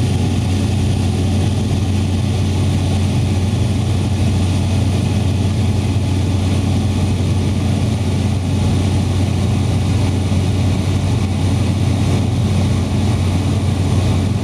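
Propeller-driven light aircraft in flight, heard from inside the cabin: the engine and propeller make a loud, constant low drone.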